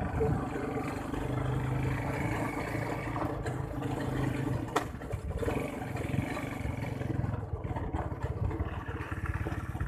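ATV engine running steadily while the quad is ridden along a dirt track.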